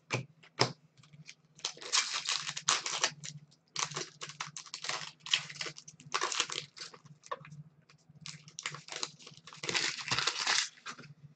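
Foil hockey-card pack wrapper crinkling and tearing as it is opened, in several bursts.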